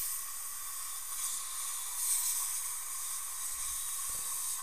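Dental air syringe hissing as it blows air over the prepared tooth to dry it, the hiss swelling at the start and again about two seconds in.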